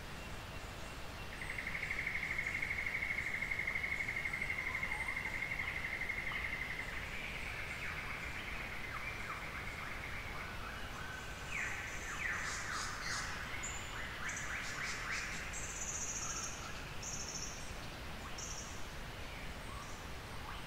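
Dawn bird chorus: a long, even, mid-pitched trill lasts about five seconds near the start, followed by a mix of shorter calls, including quick sweeping notes and high, thin notes, over a steady low background rumble.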